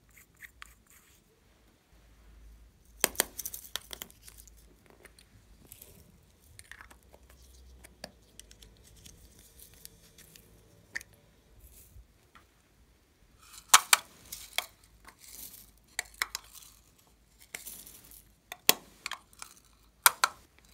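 Small plastic cosmetic cases and a lipstick tube being handled: groups of sharp clicks and taps as caps and lids are pulled off and snapped open, about three seconds in, around fourteen seconds and near the end, with quieter rustling between.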